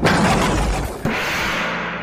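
Intro transition sound effect: a noisy crash at the start and a second whoosh about a second in, dying away in a long fade.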